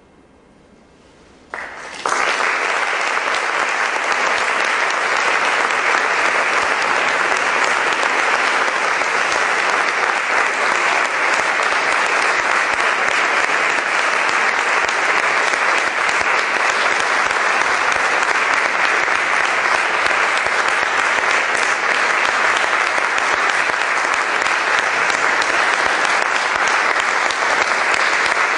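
Concert audience applauding, starting suddenly about two seconds in after a brief hush and carrying on steadily, heard with the heavy reverberation of the hall.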